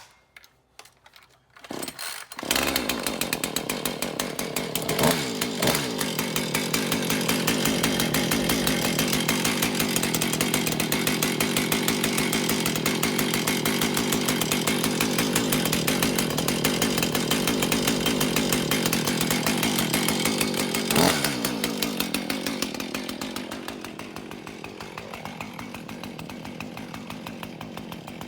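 A new Husqvarna 450 Rancher two-stroke chainsaw is pull-started on choke on its first start with fresh premix. A few short tugs on the starter cord come first, and the engine catches about two seconds in. It runs loud and fast with a couple of quick revs, then drops to a quieter, steady idle for the last few seconds.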